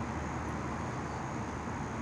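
Steady low background rumble and hiss, unchanging throughout, with a faint high steady whine above it.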